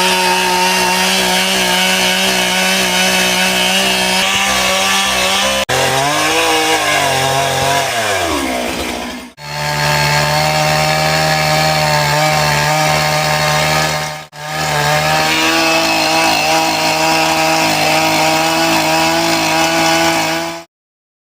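Stihl MS 661 two-stroke chainsaw running at high speed while cutting into a large tree, heard in three stretches joined by short fades. In the first stretch the engine's pitch falls over about three seconds, and the sound cuts off suddenly near the end.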